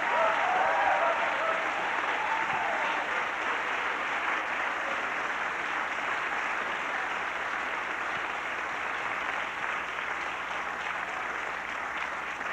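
Theatre audience applauding steadily, with a few voices over the clapping in the first few seconds and the applause easing off slightly toward the end.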